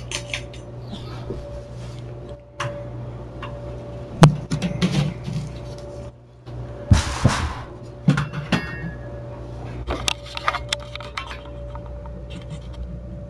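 Handling noises: scattered sharp clicks and knocks, the loudest about four seconds in, and a brief rustle about seven seconds in, over a steady low electrical hum.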